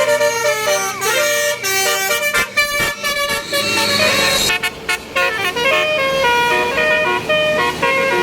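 Tour bus 'telolet' horn: a multi-tone air horn playing a quick melody of stepped notes, with a swooping, siren-like glide near the start.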